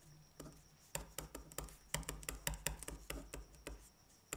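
Pen writing on paper: a quick, irregular run of short scratching strokes and taps as figures are jotted down, with soft knocks of the hand on the desk.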